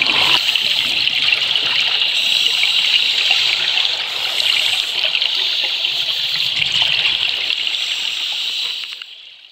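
Underwater sound of scuba divers' exhaled air bubbling up from their regulators, a steady crackling hiss heard through the camera, fading out near the end.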